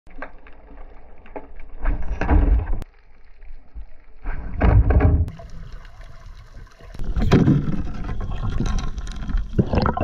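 Water sloshing and splashing around a free diver, with heavy low surges of moving water three times. The sound changes abruptly several times, like short takes cut together.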